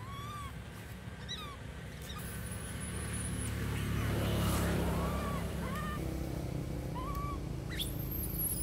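Low engine-and-road rumble of a passing motor vehicle, swelling to its loudest about halfway through and then easing off. Short rising-and-falling chirp-like calls come every second or so, and a thin high whistle sounds twice.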